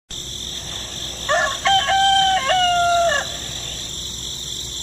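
A rooster crowing once: a single cock-a-doodle-doo of about two seconds, starting a little over a second in. It plays over a steady high hiss.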